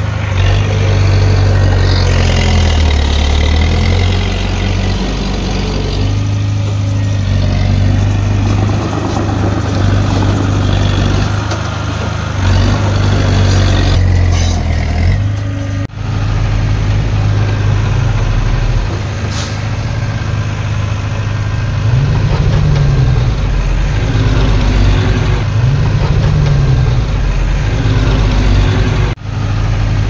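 Diesel engines of a bulldozer and small dump trucks running under work, a steady low drone whose pitch rises and falls as they rev, twice in the latter half. The sound drops out sharply for an instant twice.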